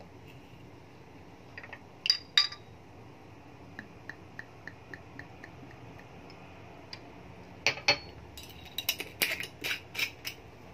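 Glass clinks as a green glass soju bottle is handled, then soju glugging out of the bottle neck into a shot glass as a run of soft, even pops, about three a second. Near the end, a quick cluster of clicks and clinks as the bottle's screw cap is worked.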